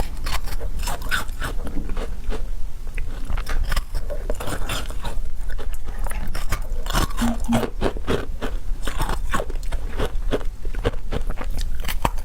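Close-miked eating sounds: a steady stream of crunchy bites and chewing, made of many sharp little clicks and crackles.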